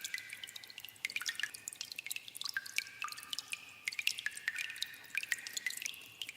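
Water dripping in a cave: many drops falling several times a second, overlapping, with short ringing plinks.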